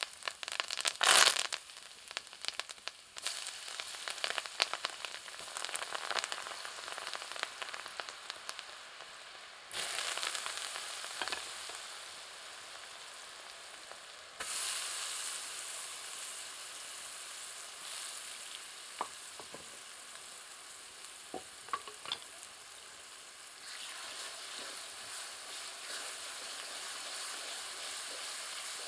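Hot tempering oil sizzling in a steel kadai as curry leaves and chopped ingredients go in. The sizzle flares briefly about a second in, then steps up suddenly about ten and again about fourteen seconds in.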